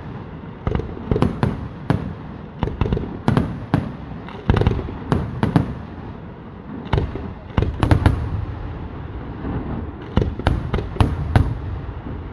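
Aerial fireworks shells bursting in quick, irregular succession: a string of sharp bangs and cracks over deep booms, several a second in clusters, with short lulls between volleys.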